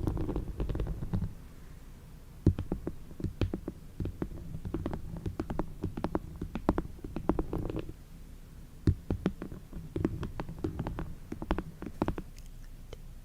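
Close-miked ASMR trigger sounds. A low rumbling noise fades about a second in, then irregular soft clicks and crackles come several a second until near the end.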